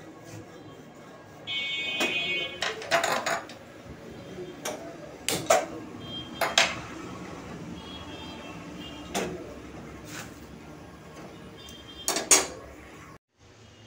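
Metal kitchen pans and utensils clattering around a gas stove: a string of separate knocks and clanks, some with a brief high metallic ring.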